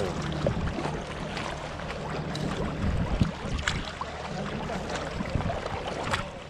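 Small waves lapping against a kayak, with wind rumbling on the microphone and a few light knocks; the sound fades out at the end.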